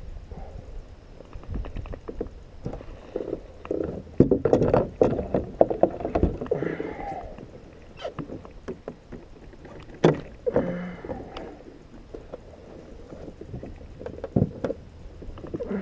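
Irregular knocks, clicks and water sloshing of a kayak and the gear handled aboard it, with clusters of hard knocks on the hull from about four to six seconds in and again about ten seconds in.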